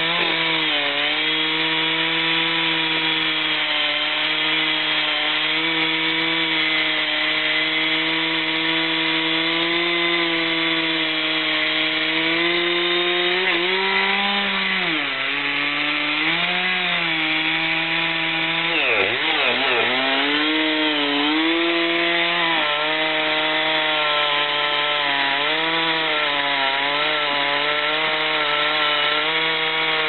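Chainsaw running at full throttle, cutting into the trunk of a huge tree. Its pitch drops under load about halfway through and again a few seconds later, then picks back up to a steady whine.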